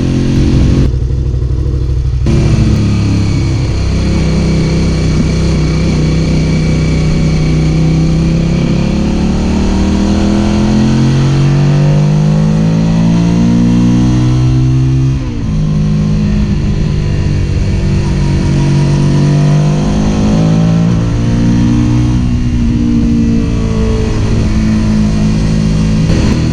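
Suzuki SV650 V-twin engine running and revving, its pitch climbing and falling several times, with a sudden drop about halfway through. The bike has a misfire.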